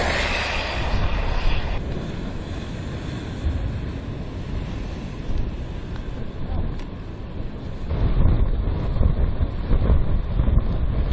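Vehicle noise with wind rumbling on the microphone: an uneven low rumble throughout, a brighter rush in the first two seconds, and the rumble growing louder about eight seconds in.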